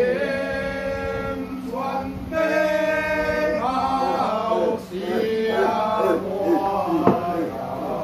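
A man chanting in long, held, wavering notes with short breaks between phrases, over a steady low hum. A sharp knock sounds about seven seconds in.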